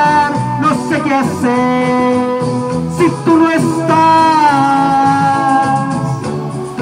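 A man singing into a handheld microphone over a recorded backing track, karaoke-style, drawing out long held notes that slide in pitch.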